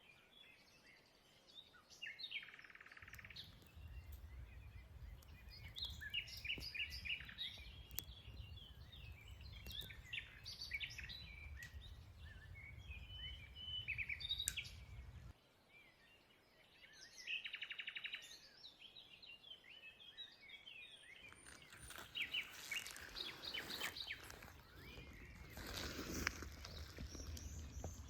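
Forest birds chirping and singing, with short calls throughout and a buzzy trill twice. For the first half a low rumble sits underneath.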